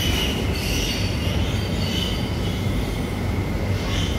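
Piglets squealing, several short high squeals heard over a steady low machine hum.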